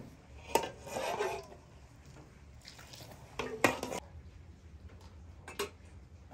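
Kitchenware being handled: a few separate clinks and short clatters of dishes or pots, some briefly ringing, the loudest about three and a half seconds in.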